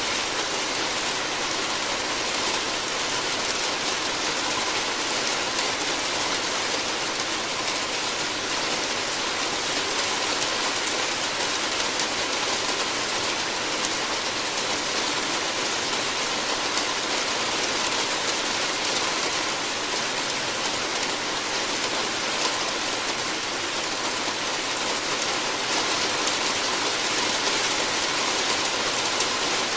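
Steady rain falling on a roof, an even hiss with the fine patter of drops.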